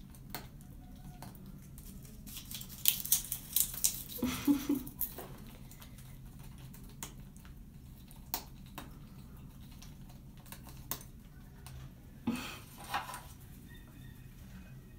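Blue-and-gold macaw cracking and crunching a peanut shell with its beak: crisp cracks and crackles in a dense cluster a few seconds in, a few scattered clicks, and another short burst of crunching near the end.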